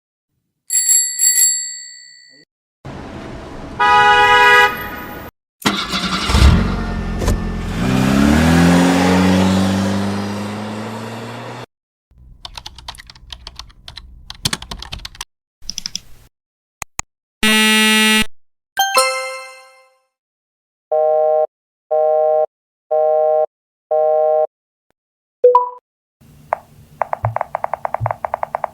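A run of unrelated short sound effects one after another. It opens with a ringing ding, then a car engine revving up for several seconds with its pitch rising, then scattered clicks, a short loud buzzer, four evenly spaced beeps, and a fast rattling buzz near the end.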